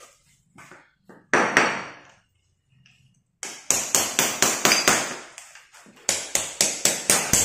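Hammer striking a chisel to chip up old ceramic floor tiles, sharp ringing blows: one loud blow about a second in, then after a pause a run of quick strikes, about three to four a second. The tiles have lost their grip on the floor beneath.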